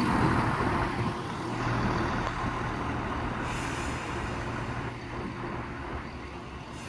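Diesel multiple unit standing at the platform with its engines running, a steady low hum under general station noise, slowly fading.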